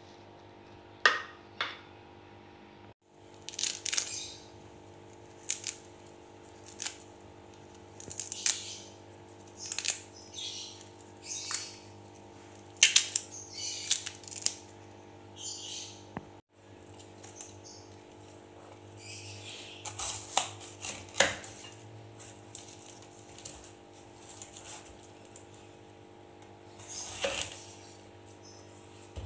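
Fruit being cut and peeled by hand: a knife slicing mango on a wooden cutting board, then the scaly skin of snake fruit (salak) cracked and pulled away. There is a run of short, sharp snaps and scrapes about once a second over a steady low hum.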